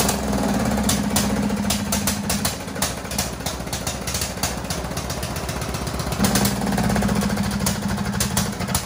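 Briggs & Stratton engine of a Troy-Bilt Pony riding mower running unevenly: strong at first, weakening through the middle, then picking up again about six seconds in, with scattered sharp clicks. The owner puts the fault down to a sticking carburetor float.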